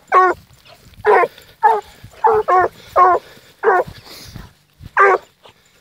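Hunting hounds barking, about eight short barks in quick succession with a pause before the last one: the hound giving voice while working a wild boar trail.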